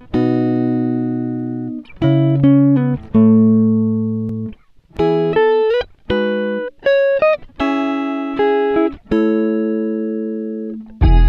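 Background music: a guitar playing a slow run of chords, each ringing out for a second or two before a short break, with a few sliding notes.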